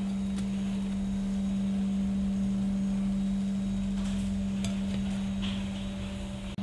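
A steady low hum at one constant pitch over a low rumble, with a few light clicks in the second half.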